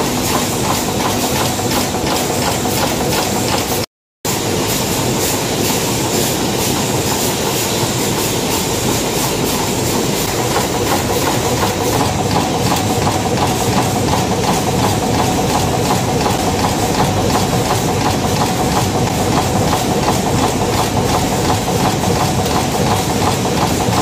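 Screw-making machines running in a factory: a loud, fast, steady clatter of repeated metal strokes, with a brief break about four seconds in.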